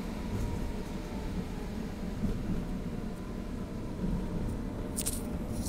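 Tram running between stops, heard from inside the car: a steady low rumble of wheels on rails and the drive, with a faint steady whine. A few short, sharp clicks or rattles come about five seconds in.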